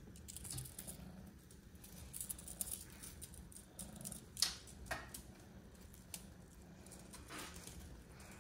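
Faint rustling, scratching and light tapping from a Maine Coon kitten playing on a wooden tabletop, with two sharper taps about halfway through.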